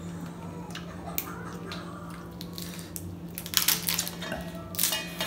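Small clicks and crackles of cooked Dungeness crab shell as meat is picked out of it with a small metal fork, sparse at first and bunching into a run of sharper cracks about three and a half seconds in and again near the end, over a low steady hum.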